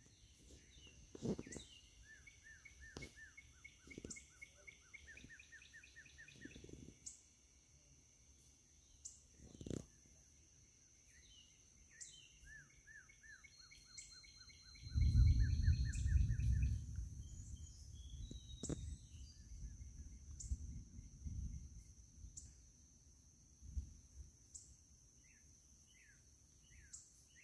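Songbirds singing in runs of short, quickly repeated chirps over a steady high insect drone. A low rumble about halfway through is the loudest part, with a few soft knocks scattered through.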